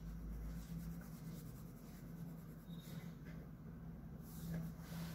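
Red coloured pencil shading on drawing paper: a faint, steady scratching of the pencil strokes, over a low steady hum.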